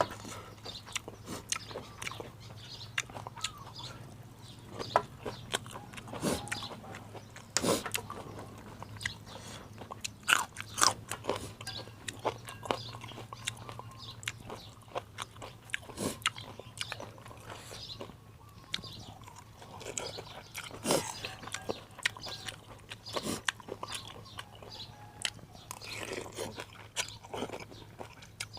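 A person biting and chewing crunchy food close to the microphone: irregular crisp crunches and clicks, over a steady low hum.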